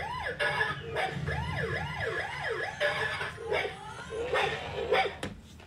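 A battery-powered toy's electronic sound effect: short rising-and-falling pitch sweeps repeated several times a second, like a toy siren or electronic bark, mixed with a few plastic knocks. It stops with a sharp click near the end.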